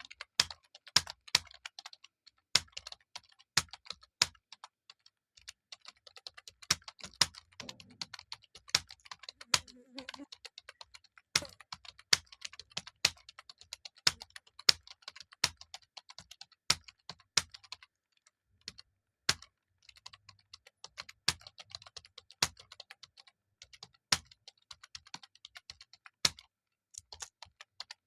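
Computer keyboard typing at a steady, fast pace in a typing speed test: a continuous, irregular stream of key clicks, with some strokes much louder than the rest.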